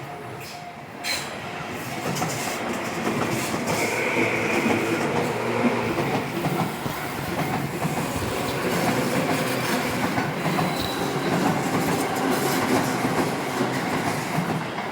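Electric train passing close by a level crossing, its wheels clattering over the rail joints with a little wheel squeal.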